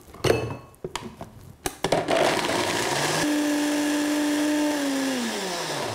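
A few knocks as the lid and jar are handled on a high-speed countertop blender. From about two seconds in, the blender runs loud and steady, blending soaked cashews into a thick sauce. Near the end its motor pitch falls as it winds down.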